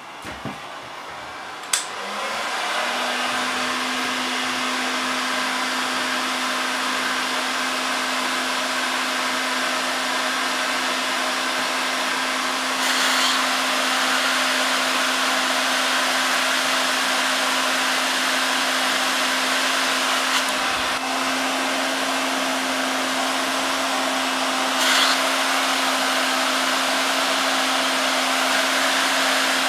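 Hot-air rework gun blowing steadily, its fan giving a hum under the rush of air, heating the suspected burnt SMD LED on the strip to desolder it. The airflow starts about two seconds in after a few clicks, and the hum steps up slightly in pitch later on.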